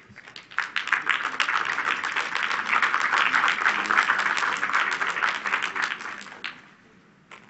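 Audience applauding, swelling within the first second, holding, then dying away about six and a half seconds in.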